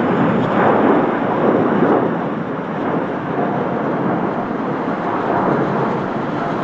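Jet engine noise of a departing Boeing 787-9 Dreamliner: a loud, steady, deep rumble.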